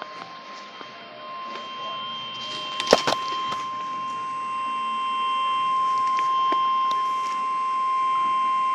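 NOAA Weather Radio warning alarm tone, a single steady high tone (1050 Hz) from a Midland WR-400 weather radio's speaker, growing louder over the first few seconds. It signals that a severe thunderstorm warning is about to be read. A sharp knock about three seconds in.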